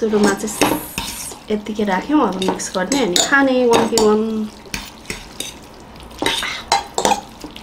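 Metal forks clinking and scraping on plates as noodles are twirled and eaten, with wordless vocal sounds through the first half.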